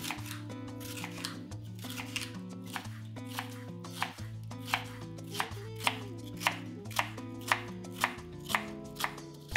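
Chef's knife slicing and dicing bell peppers on a wooden cutting board: crisp strokes through the pepper, the blade meeting the board about twice a second, louder in the second half.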